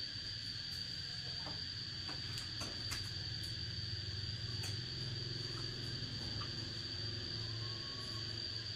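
Steady high-pitched insect drone over a low hum, with scattered light clicks throughout.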